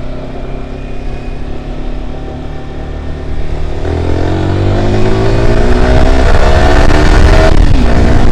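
Kawasaki ZX-10R's inline-four engine on its stock exhaust, running steadily at first, then accelerating with the pitch climbing and growing louder for about four seconds, before the pitch drops sharply near the end.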